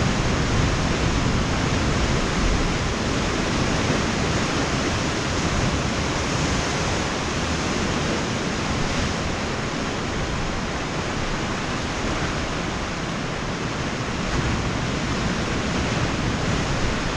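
Sea surf: a steady rush of breaking waves with a deep low rumble, easing slightly about two-thirds of the way through.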